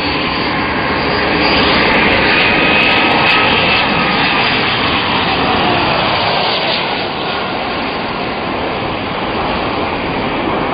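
Jet engines of a twin-engine airliner on short final, passing low and close: a loud, steady rush that swells about two seconds in, with a whining tone that falls in pitch as the plane goes by.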